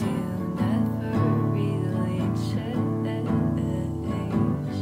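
Music: an acoustic guitar playing sustained chords, without sung words.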